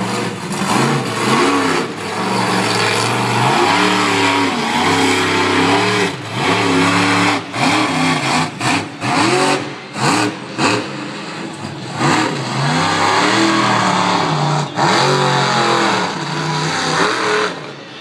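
Monster truck engine revving hard over and over, its pitch climbing and falling with each blip of the throttle. The engine note cuts out in several short gaps about halfway through, around when the truck goes airborne over a jump, and it drops away near the end.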